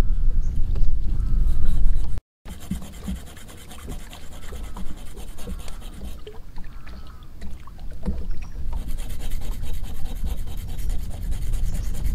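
A low rumble of wind on the microphone, then, after a short break, a small metal point scratching and scraping at a hand-held block in short rubbing strokes with light ticks. The scraping turns hissier over the last few seconds.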